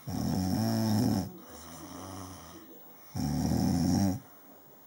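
A person snoring: two loud snores about a second long, about three seconds apart, with a quieter breath between them.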